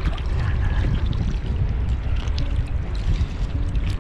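Steady low wind rumble on the microphone over water lapping and trickling close by, with a few faint clicks.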